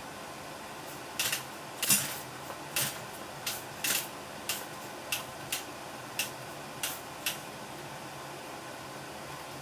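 A series of about a dozen sharp clicks and taps at uneven spacing over several seconds, with no engine running.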